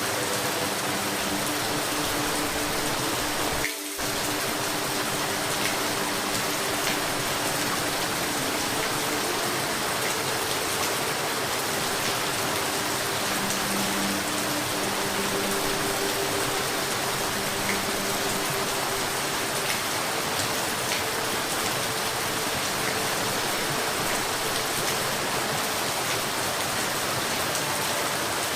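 Steady, dense rainfall, an even hiss with no breaks, apart from a brief dip about four seconds in.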